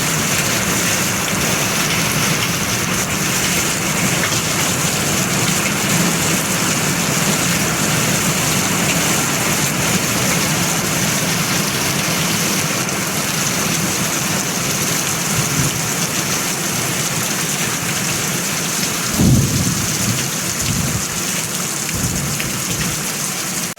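Hail pounding steadily on a metal roof, a dense, loud clatter, with a brief low rumble about nineteen seconds in.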